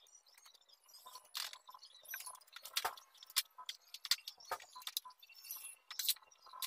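Scattered light clicks, taps and small rattles of hand work on a PVC-pipe and wooden frame, with tools and small parts being picked up and set down.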